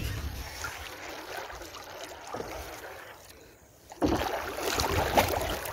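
Kayak paddle dipping and splashing in the water, faint at first and suddenly louder and busier with strokes about four seconds in.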